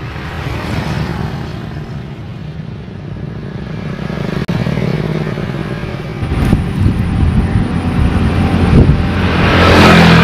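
Motor traffic on a main road: a steady engine drone that swells louder over the last few seconds as a vehicle passes close.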